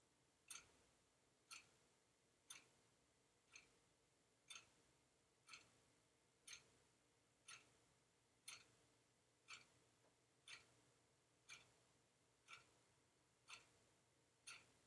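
Faint, sharp ticks, evenly spaced at one each second, like a clock ticking.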